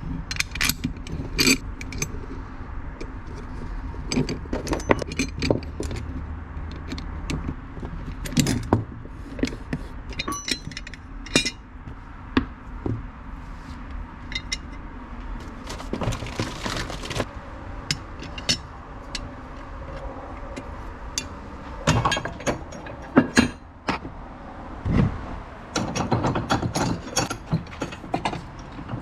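Irregular metallic clinks, knocks and scrapes of hardware being handled and fitted by hand while a shifter bracket is remounted, with a longer scraping or ratcheting stretch about halfway through. A low steady hum underneath stops about seven seconds in.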